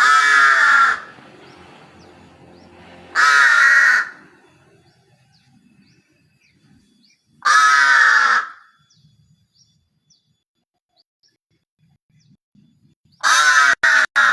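Crow cawing: four loud, harsh caws of about a second each, spaced a few seconds apart. The last caw is broken into several pieces.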